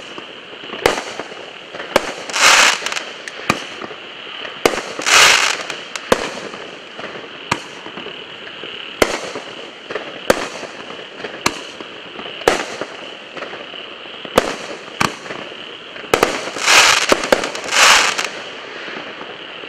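Starget Brave Warrior A5279, a 16-shot consumer fireworks cake, firing shot after shot: sharp reports about every one to one and a half seconds as shells launch and burst. A few longer, noisier bursts of about half a second come early on and in a close cluster near the end.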